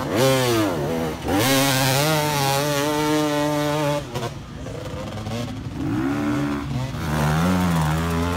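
Enduro dirt bike engine revving hard as it climbs a steep sandy hill. The revs sweep up at the start and hold high, cut off about four seconds in, then climb again near the end.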